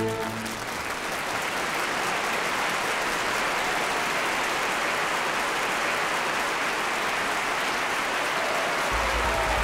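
Audience applauding after a string orchestra's final chord, which dies away just at the start. A low bass drone comes in near the end.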